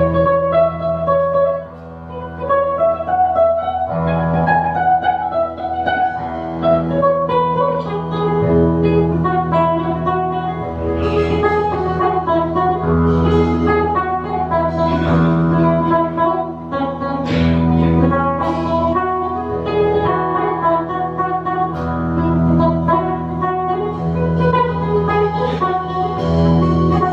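A live band playing jazz, with a guitar to the fore over held bass notes.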